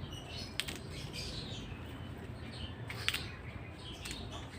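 Small birds chirping faintly in the background, in short scattered calls, with two sharp clicks, one about half a second in and one about three seconds in.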